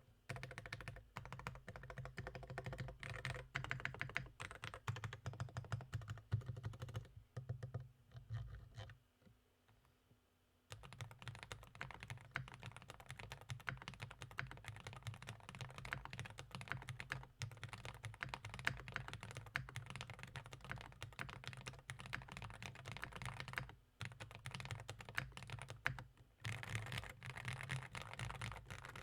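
Typing on a Meletrix Zoom65 custom mechanical keyboard with lubed JWK linear switches, a polycarbonate plate, full foam and doubleshot PBT keycaps: rapid keystrokes in three spells, broken by a pause of a couple of seconds about nine seconds in and another about twenty-four seconds in.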